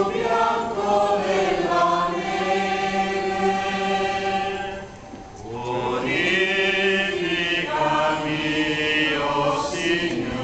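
A procession crowd singing a religious hymn together, holding long notes; the singing breaks off briefly about five seconds in, then resumes.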